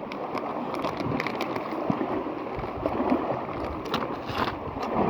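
Steady rushing of sea water washing on the shore, with a few faint clicks and rustles, the most noticeable about four seconds in.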